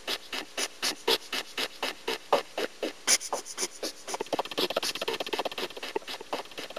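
Small audience clapping, with single claps standing out at about four a second. The clapping grows into a quicker, denser patter from about four seconds in.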